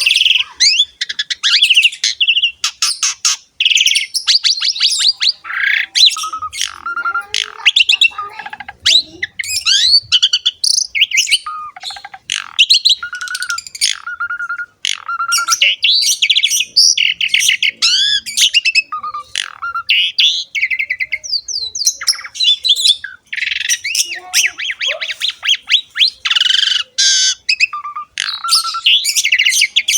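Javan pied starling (jalak suren) singing without pause: a varied, loud run of whistles, harsh chattering squawks and fast strings of repeated notes.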